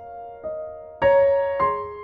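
Background music: soft piano, single notes struck one after another, with a louder chord about a second in.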